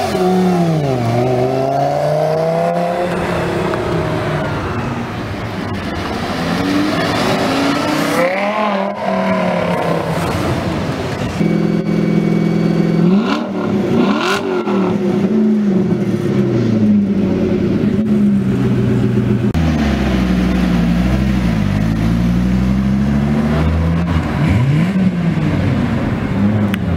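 Sports car engines revving and accelerating hard one after another, the pitch climbing and dropping again through gear changes. A Lamborghini Gallardo's V10 pulls away near the start and a Dodge Viper's V10 accelerates off near the end.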